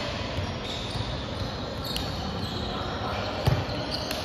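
Ball impacts on an indoor volleyball court, heard over the echoing noise of a large gym hall. There are a few sharp smacks and one loud thump about three and a half seconds in.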